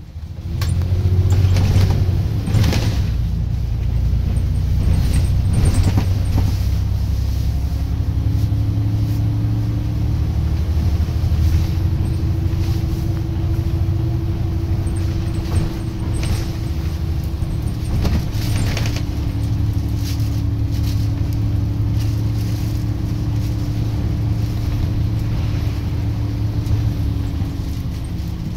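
A Volvo B9TL double-decker bus's diesel engine droning under way, heard from the upper deck, with a steady drivetrain whine over the low drone. Short rattles and knocks from the body come and go, several times.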